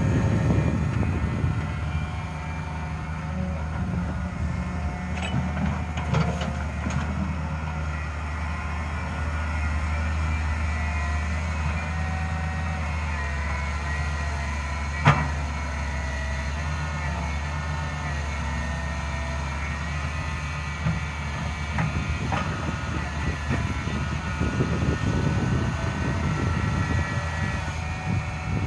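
Diesel engine of a Daewoo 130W-V wheeled excavator running steadily while it digs soil, with a single sharp clank about halfway through and rougher low rumbling near the start and near the end.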